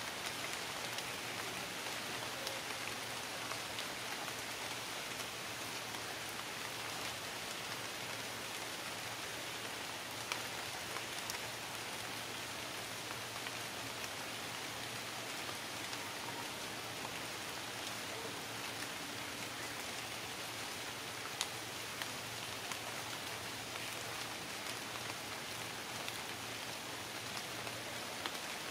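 Steady hiss of rain, with scattered sharp drop ticks.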